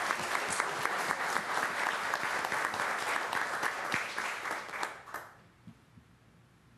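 Audience applauding: many hands clapping, which dies away about five seconds in.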